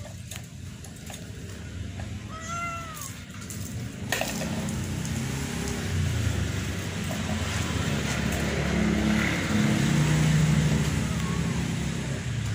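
A wet domestic cat being bathed meows once, about two seconds in. About four seconds in, a loud rushing noise starts abruptly with a low rumble under it, swells and eases off near the end.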